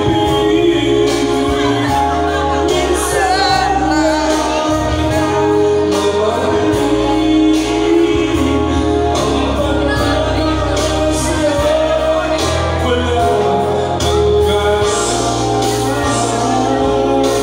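A singer's voice through a handheld microphone over a backing track, with a bass line moving from note to note.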